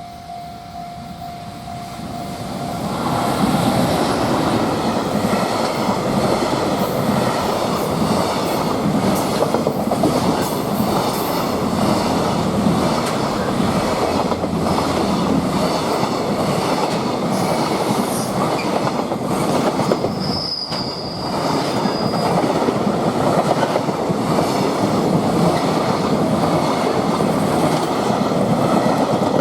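Freight train passing close by, its wagons' wheels running loudly over the rails; the noise swells in over the first three seconds and then holds steady. A brief high wheel squeal comes about 20 seconds in.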